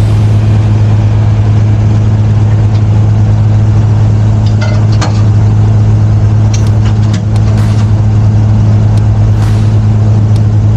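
Diesel engine of a crane running steadily at constant speed, a deep unchanging hum, with a few scattered sharp clicks and knocks over it.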